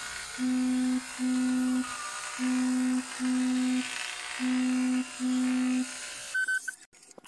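Electric hair clippers buzzing, with a low buzz that comes in pairs of short pulses about every two seconds. It stops about six seconds in, and a few sharp clicks follow.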